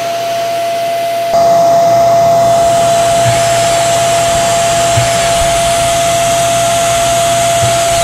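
Hoover REACT Professional vacuum running with a steady whine; about a second in, the powerhead's brush-roll motor switches on and the sound steps up louder and fuller. It comes on as the head's faulty micro switch is pushed to the point where it makes contact.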